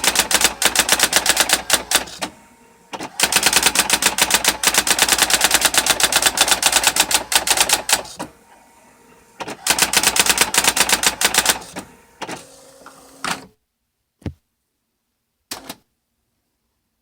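Brother GX6750 electronic daisy-wheel typewriter printing in fast, even runs of strikes over a faint motor hum, with short pauses between runs. Near the end it gives a few separate mechanical sounds and a brief whir, then stops, leaving two single clicks.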